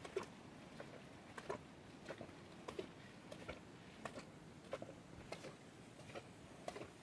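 Footsteps, soft irregular steps about every half second to second, over a faint steady hiss.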